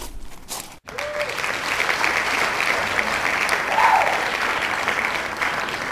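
Crowd applause, starting abruptly after a brief break about a second in and continuing steadily, with a short tone rising and falling above it near the middle.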